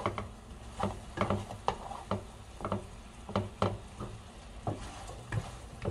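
Nylon slotted spatula scraping and tapping against a nonstick frying pan as sweet potato slices and abalone are gently stir-fried in a soy glaze, in irregular strokes about twice a second over a light sizzle.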